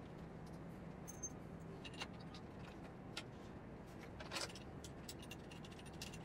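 A few faint metallic clicks and light rattles of mounting bolts and nuts being threaded and hand-tightened into a vertical pressure washer pump's mounting legs, over a low steady room hum.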